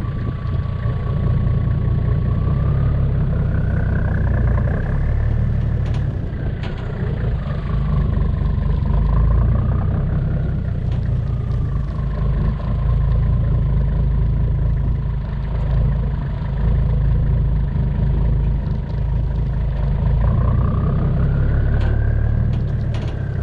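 A vehicle engine running steadily with a low rumble, and a thin whine above it that slowly rises and falls several times as the speed changes.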